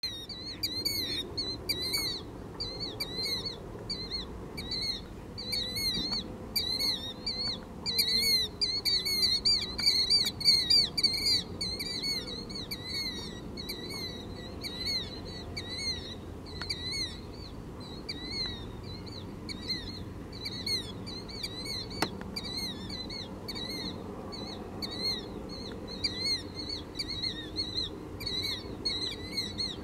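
Killdeer calling: a long run of shrill, rising-and-falling notes, several a second, loudest about eight to twelve seconds in.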